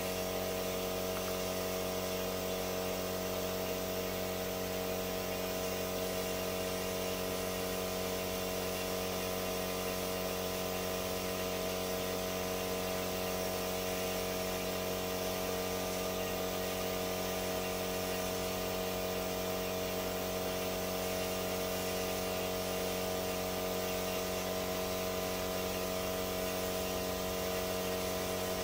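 A steady mechanical hum made of several unchanging tones, with no rise, fall or break.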